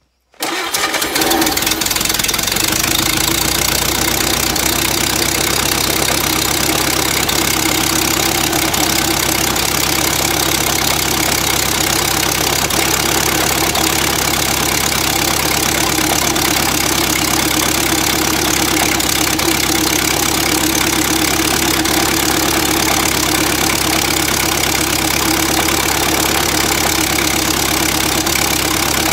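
Ford Model A four-cylinder flathead engine on a run stand starting from cold. It catches about half a second in, then runs steadily.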